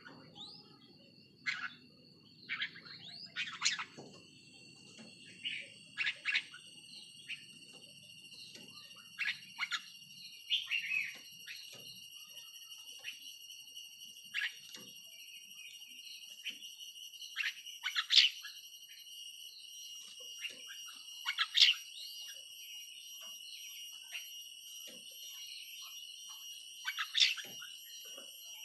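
Red-whiskered bulbul calling: short, sharp whistled chirps repeated irregularly every second or two, over a steady high whine.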